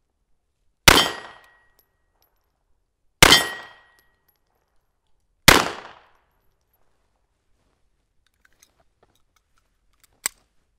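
Three shots from a FEG PA-63 pistol in .32 ACP (7.65 Browning), fired about two and a half seconds apart, each followed by a short echo. Near the end, a single sharp click as the pistol is handled.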